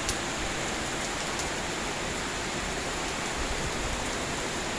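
Steady rainfall, an even hiss of rain coming down without a break.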